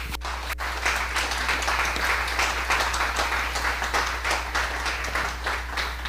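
Audience applauding: many hands clapping in a steady, dense patter.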